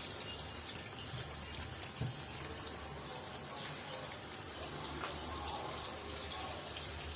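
Water running steadily from a hose into the tub of a semi-automatic washing machine, filling it over detergent. One small click about two seconds in.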